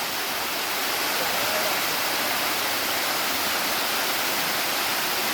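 Waterfall on a rocky creek, water pouring and splashing in a steady rush of noise.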